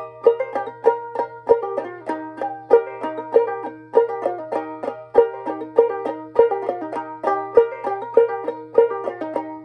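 Ukulele played clawhammer style in an instrumental break with no singing. It gives a steady, bouncing run of plucked notes, with a strong stroke about every half second and lighter notes between.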